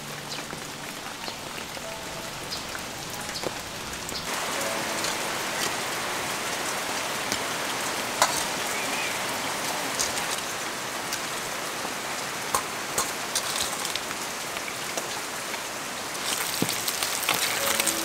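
Steady rain falling, an even hiss with scattered drip ticks. It grows a little louder about four seconds in.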